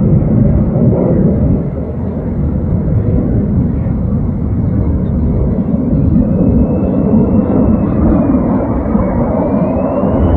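Military fighter jet flying overhead: a loud, steady jet-engine roar. From about halfway through, a faint high whine glides up and down over it.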